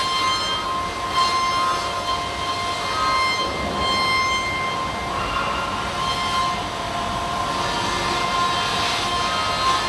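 Starrag ECOSPEED F five-axis machining centre milling an aluminium part: a steady high-pitched cutting whine with overtones, over a hiss of flying chips.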